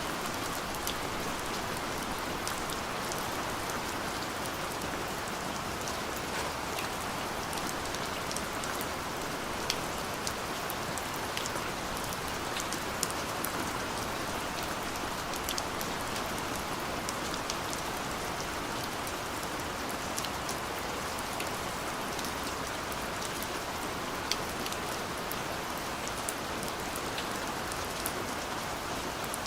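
Steady rain, with scattered sharp taps of individual drops landing close by.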